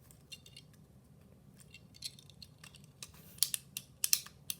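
Hard plastic Beyblade parts clicking and scraping as they are twisted and pressed together, the clicks growing louder and more frequent in the last second and a half.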